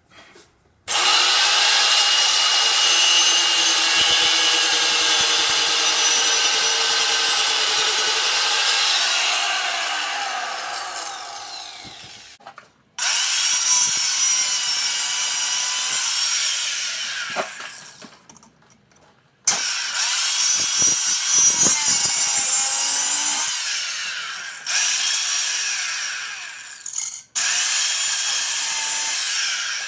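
A high-speed power tool cuts slots across a metal exhaust adapter pipe. Its high whine wavers under load in about five runs, each starting suddenly and trailing off as the tool spins down.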